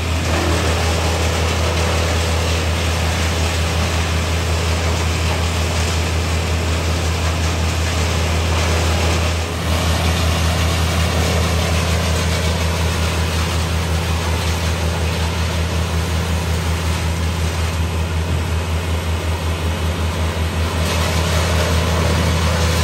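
Heavy engine running at a steady speed, a constant low hum with a brief dip about nine and a half seconds in.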